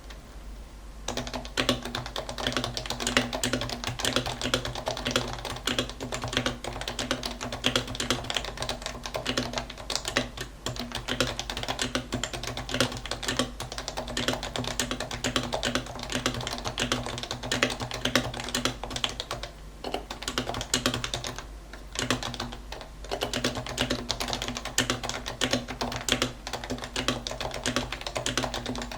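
Fast continuous typing on a Norbauer Norbaforce Mk II keyboard with Topre electrostatic-capacitive switches on lubed 45 g rubber domes and a steel plate. The keystrokes begin about a second in and come in a dense, rapid stream, with two brief pauses about two-thirds of the way through.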